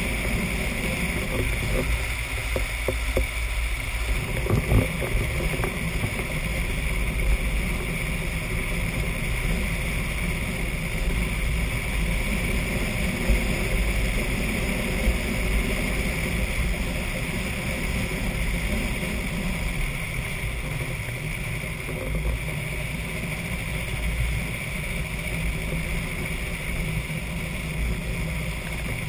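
Wind buffeting a GoPro Hero 2's microphone over the steady rolling roar of a drift trike's hard wheels on asphalt, with a few knocks about two to five seconds in.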